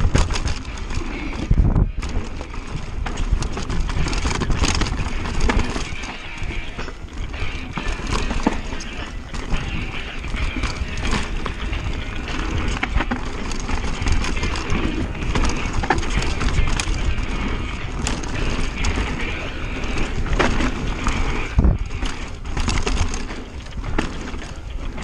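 Mountain bike ridden fast down a dirt trail, heard from a bike-mounted camera: tyres rumbling over dirt and roots, frequent knocks and rattles of the bike over bumps, and wind rushing past the microphone.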